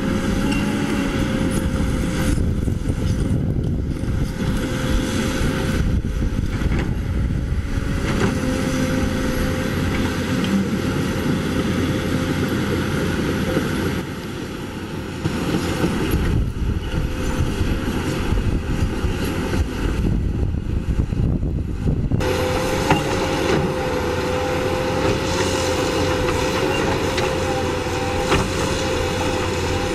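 Caterpillar 320D hydraulic excavator working: its diesel engine runs steadily under load with a constant high whine over a dense rumble.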